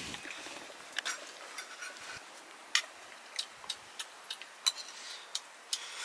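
Steel spoons clinking against stainless-steel bowls as people eat: a string of short, sharp, irregular clinks, some with a brief metallic ring.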